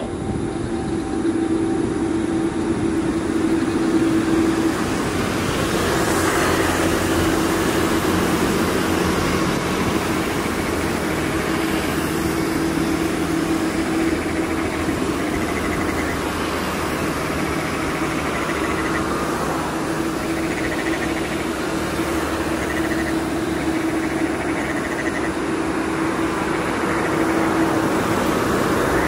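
Four jet engines of a Boeing 747 freighter running steadily as it taxis onto the runway, a broad rushing noise over a constant low drone that swells slightly about six seconds in.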